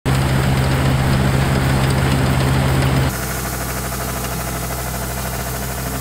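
Iseki rice combine harvester running under load, a loud steady engine-and-machinery drone with a fast low rattle. About three seconds in it cuts to a quieter, steady machine drone.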